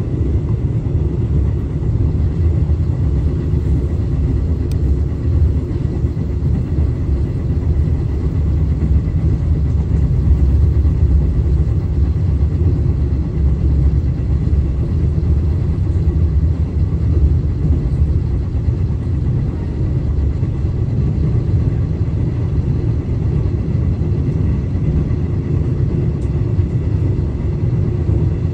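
Steady low rumble of a KTM passenger train running along the track, heard from inside the carriage, with a faint steady high whine.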